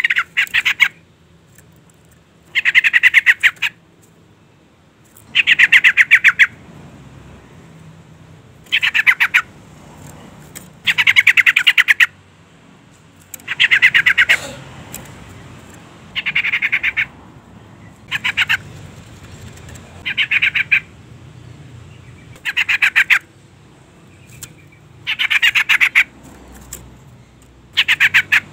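Female yellow-vented bulbul (trucukan) calling: short bursts of rapid chattering notes, each under a second long and repeated about every two seconds, about a dozen times.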